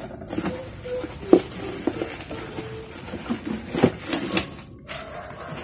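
Plastic packaging rustling and crinkling as circular-saw parts are unwrapped from their box, with a couple of sharper knocks along the way.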